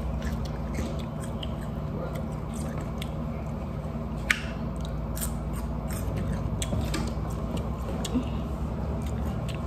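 A person chewing food close to the microphone, with many small wet mouth clicks and one sharper click about four seconds in, over a steady low hum.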